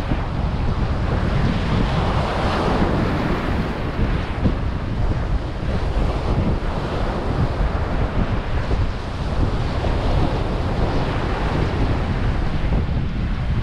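Wind buffeting the microphone with a low rumble, over the steady wash of small surf breaking on the beach.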